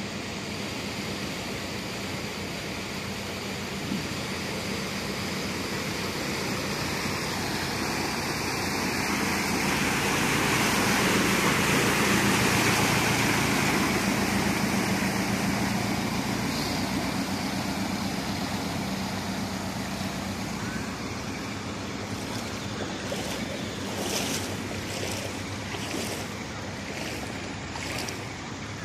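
A Toyota Hilux pickup drives through floodwater past the listener. The rush and splash of its wake and its engine hum swell to a peak about halfway through, then fade as it moves off. A few short sharp sounds come near the end.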